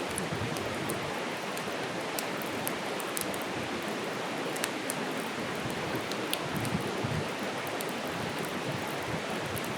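Wood campfire burning: a steady rush of flame with frequent sharp crackles and pops from the burning wood, one pop standing out about four and a half seconds in.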